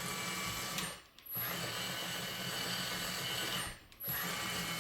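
Kabolite K963 RC hydraulic track loader running its motors and freshly repaired tracks in three short runs, each a steady whirring that starts and stops abruptly, with brief pauses near one second and near four seconds in.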